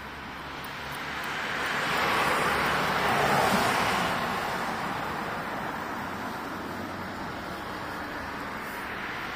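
A car passing by, its tyre and road noise swelling over about two seconds, peaking around three seconds in, then slowly fading away.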